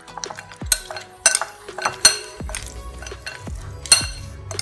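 A metal spoon stirring mutton chops in a glass mixing bowl, with irregular sharp clinks as the spoon strikes the glass. The loudest clinks come about two seconds in and near the end.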